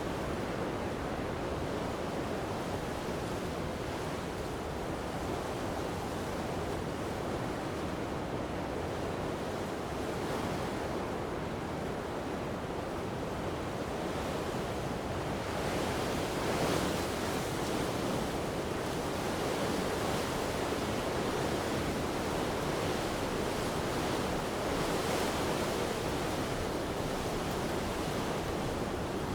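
Strong gusty wind blowing along a coast, mixed with the wash of surf. The steady noise swells in gusts about halfway through and again later on.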